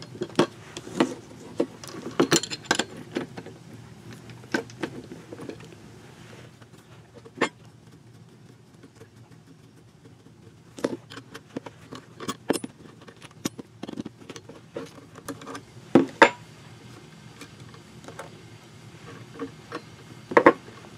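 Steel wrenches clinking against each other and against the hex nut on a floor pump's plunger rod as the nut holding the leather gasket is worked loose: scattered sharp metal clicks, a few every few seconds.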